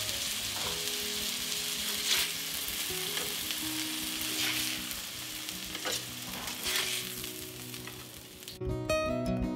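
Patties frying in a cast iron skillet: a steady sizzle, with a metal spatula scraping the pan several times as they are lifted out. The sizzle cuts off shortly before the end.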